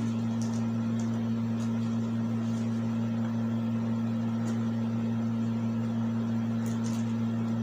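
A steady low hum with hiss, over which packing tape on a cardboard-wrapped box is picked at and peeled by hand, giving a few faint clicks and crinkles.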